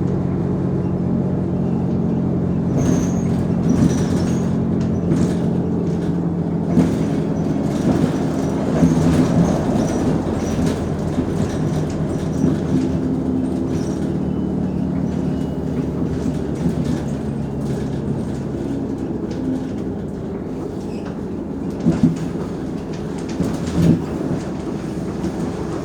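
Mercedes-Benz O345 Conecto G articulated city bus under way: its diesel engine runs with a steady low note, over a constant clatter of body and fittings rattling. The engine note eases off about three quarters of the way through, and two sharp knocks come near the end.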